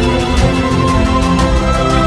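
Background music with held tones over a steady beat.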